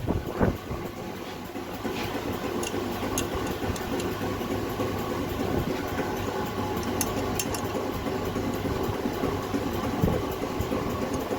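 Car running with a steady low drone and scattered light ticks, put forward as the noise of a wheel hub bearing that sits loose in its hub.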